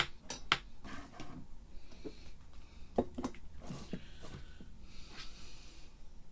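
Clicks and scrapes of a kitchen utensil against the countertop. There is a sharp click at the start, another about half a second in, a quick cluster of clicks about three seconds in, and a brief scrape near the end.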